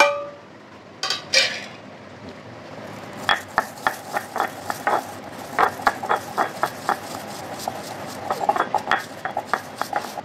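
Stone pestle pounding cumin seeds in a stone mortar (rolu): two knocks about a second in, then from about three seconds in a run of sharp, irregular strokes, a few a second.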